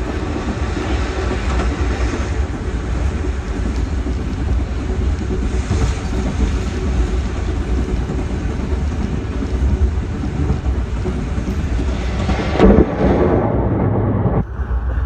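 Passenger train's running noise heard from inside the coach: a steady low rumble of wheels on rail, with one louder knock near the end.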